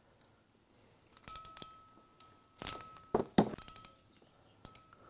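Hand ratcheting crimper clicking and snapping as its handles are squeezed to crimp terminal pins onto light wires: several clusters of sharp clicks from about a second in, one louder snap near the middle.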